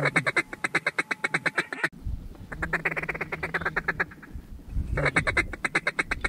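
Rapid, evenly paced duck quacking chatter, in three long runs with short breaks about two and four and a half seconds in.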